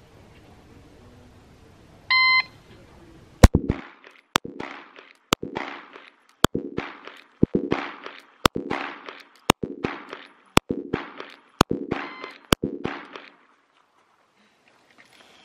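A shot timer beeps once, then a Glock 19 Gen 5 9mm pistol fires ten shots at a steady pace of about one a second, starting about a second after the beep.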